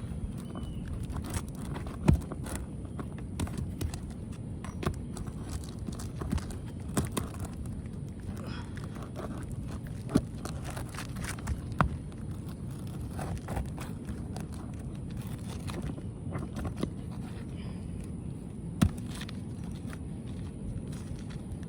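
Scattered knocks, scrapes and clicks of hand tools working on asphalt roof shingles, with a few sharper knocks standing out, over a steady low rumble.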